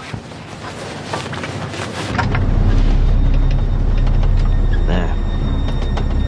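Car engine idling, a steady low hum heard from inside the car. It comes in about two seconds in, after quieter street noise with a few light clicks.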